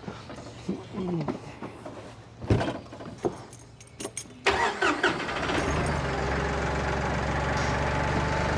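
Farm tractor's engine cranked and catching about four and a half seconds in, then settling into a steady idle. Before it starts there are only a few scattered clicks and knocks.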